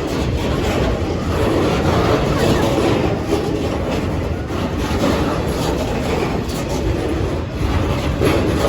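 Train running past over the level crossing, its wheels clicking over the rail joints amid a steady rumble.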